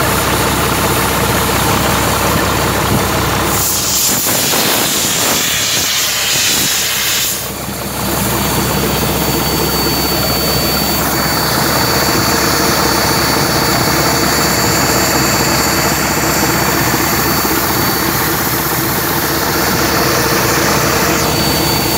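Engine and belt-driven piston air compressors running steadily. Between about four and eight seconds in there is a spell of hissing, and from about eleven seconds in a thin high whine runs over the machine noise.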